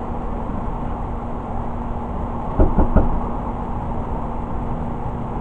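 Steady low background hum with three quick, light knocks about two and a half seconds in: a makeup brush being tapped against the eyeshadow palette to knock off excess powder.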